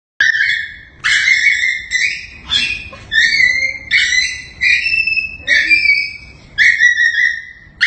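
Small fluffy puppy crying in high-pitched whines, about one a second, each held briefly at a steady pitch.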